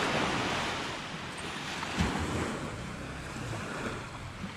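Small waves breaking and washing up a sandy beach on a calm sea, with wind buffeting the microphone.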